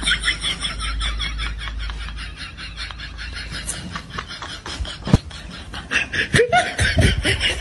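Snickering laughter: a rapid run of short, breathy laughs that fades down in the middle and picks up again near the end, with a short tone sliding down in pitch about five seconds in.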